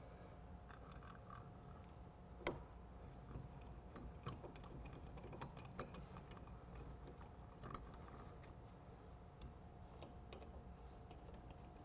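Faint, scattered small metallic clicks and ticks of a Phillips screwdriver turning the back-plate screws into a shower valve, with one sharper click about two and a half seconds in, over a faint steady hum.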